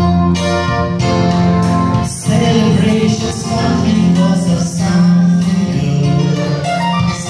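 A group of children singing a Christmas song together, with instrumental accompaniment.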